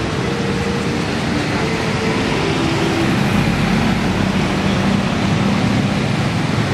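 Steady road traffic noise from cars and motorcycles moving through a busy intersection, with a constant low engine hum and some held tones that shift in pitch during the first few seconds.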